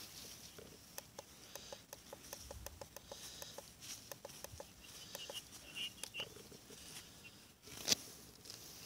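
Plastic tuning button on a Sangean DAB+ radio clicking as it is pressed over and over, a few clicks a second, stepping the set through its channels in manual tuning. One louder knock comes near the end.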